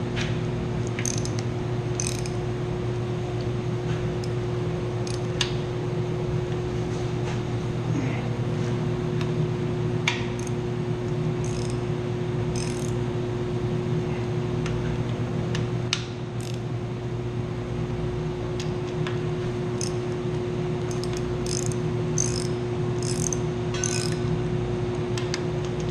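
Ratchet wrench with a deep socket clicking in short runs as bolts are tightened one after another, over a steady hum of running machinery.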